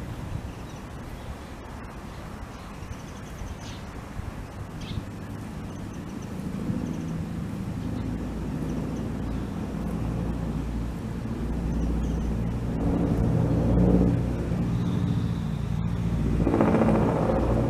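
A motor engine running nearby with a low hum, growing louder through the second half and loudest near the end.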